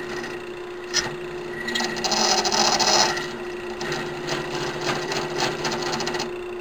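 Lathe motor running with a steady hum while a hand-held cutting tool scrapes down a spinning brass rod. There is a sharp click about a second in, the heaviest cutting comes between about two and three seconds, and lighter, broken cuts follow.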